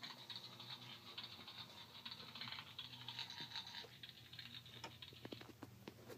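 Faint handling noise: a rubbing hiss with scattered small clicks over a low hum, the hiss stopping about five and a half seconds in.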